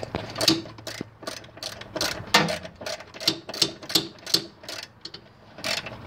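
Ratchet wrench clicking in uneven runs, about two to three clicks a second, as an air box bolt is loosened.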